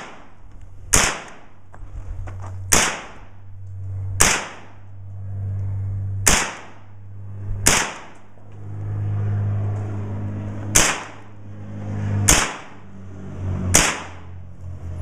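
AR-style rifle fired at close range in slow single aimed shots, about eight sharp cracks one to three seconds apart. A low steady hum runs underneath between the shots.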